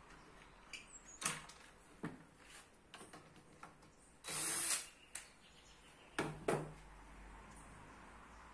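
Scattered wooden clicks and knocks from handling a dowel in a wooden jig, with a loud half-second hissing whir about four seconds in as a cordless drill briefly spins the dowel; two more knocks follow a couple of seconds later.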